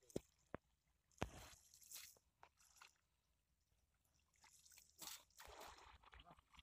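Faint, scattered splashing and sloshing of muddy pond water as a fishing net is dragged through the shallows, with a few sharp clicks in the first second or so.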